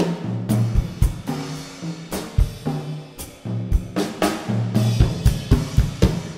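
Solo acoustic drum kit played with sticks: fast figures on snare and pitched toms with bass drum kicks and cymbal strikes, growing denser before the playing stops near the end and the kit rings out.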